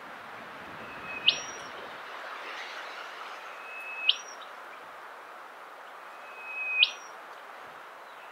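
Rufous whistler calling: three whistled notes about two and a half seconds apart, each a held note that snaps sharply upward at the end.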